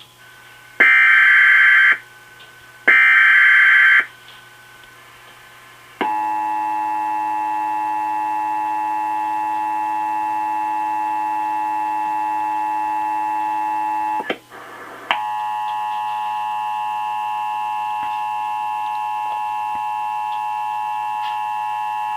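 Emergency Alert System test tones from a television broadcast. First come two short bursts of warbling data tones, the SAME header, about two seconds apart. About six seconds in, a loud, steady multi-tone attention signal starts; it breaks off briefly with a click around fourteen seconds in, then resumes steadily.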